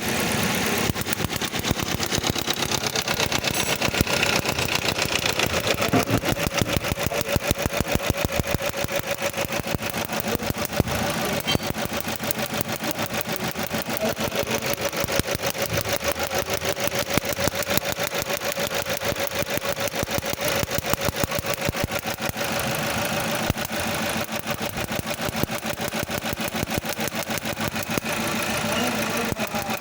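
Toyota engine idling with a misfire in cylinder 1 (code P0301): a rapid, even pulse broken by irregular louder beats.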